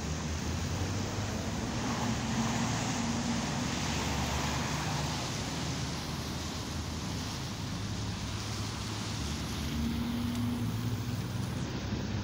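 Steady city street traffic: cars driving past on a wet, slushy road, the tyres giving a continuous hiss over a low engine hum that swells twice as heavier vehicles go by.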